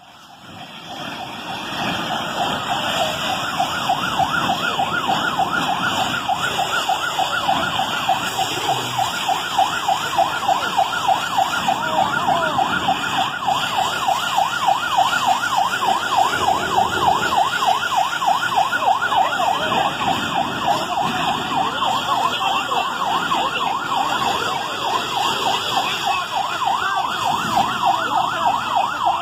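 Ambulance siren in a fast yelp, its tone sweeping rapidly up and down about four times a second. It grows louder over the first couple of seconds, then holds steady.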